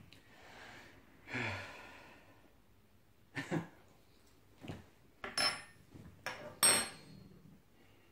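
Two people breathing out hard and sighing through their mouths after swallowing a spoonful of extremely hot chili sauce, reacting to the burn. There are a few short breaths, then two sharp metallic clinks with a brief ringing about five and a half and seven seconds in.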